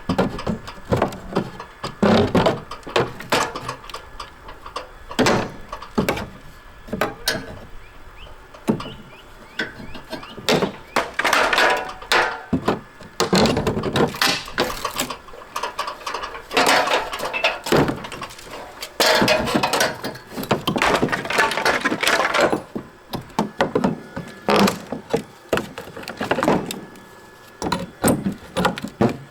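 Old painted wood siding being pried and torn off a house wall: irregular cracks and knocks of the boards breaking loose, with a few longer scraping stretches.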